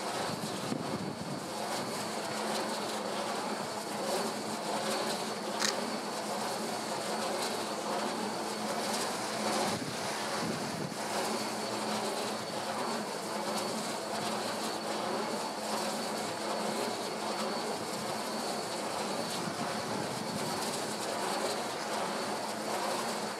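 Steady, distant engine drone with a low hum, and a single sharp click about six seconds in.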